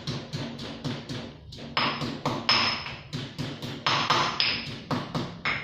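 Pestle pounding garlic and chilies in a mortar: quick, irregular strokes about four a second, some harder ones with a short ringing click.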